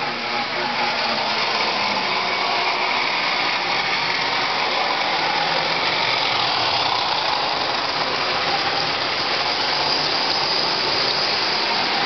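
Lionel O-gauge model train running on three-rail track: a steady rolling rumble and motor whine from the diesel locomotive and its cars.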